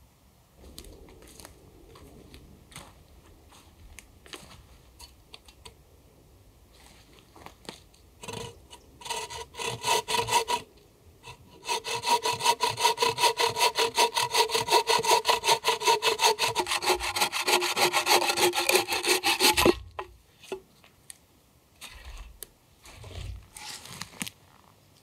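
Wooden-framed bucksaw cutting through a pine log: a few uneven strokes to start the cut, a short pause, then a long run of fast, steady back-and-forth rasping strokes that stops with a thud. Light rustling and handling noises before and after the sawing.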